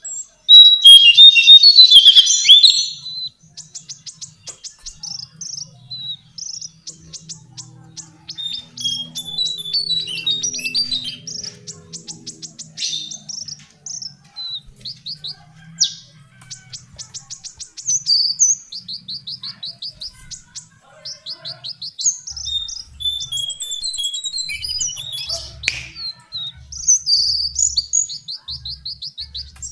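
Lesser shortwing singing: repeated rapid, high trills and jumbled chirping phrases, loudest about one to three seconds in.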